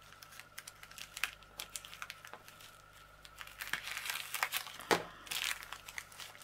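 Scissors snipping through a small plastic mailing bag with a few sharp clicks, then the plastic crinkling as the bag is pulled open, louder from about three and a half seconds in. There is a single knock about five seconds in as the scissors are set down on the cutting mat.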